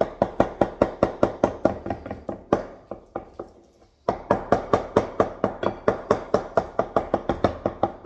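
Wooden utensil beating banana pancake mixture in a bowl, knocking against the bowl about six times a second. It stops for about a second and a half near the middle, then starts again.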